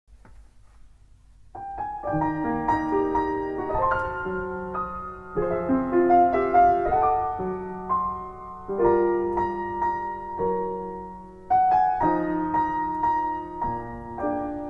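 Piano music: a piano comes in about a second and a half in and plays a melody over chords, with notes struck and left to ring.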